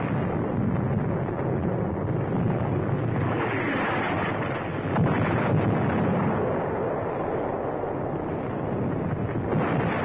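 Battle sound on an old newsreel soundtrack: a continuous rumble of artillery fire and explosions, swelling about three to five seconds in.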